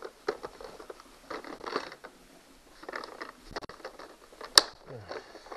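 Tap and die set being handled and packed into its case: scattered small metal clicks and rattles, with one sharp click about four and a half seconds in.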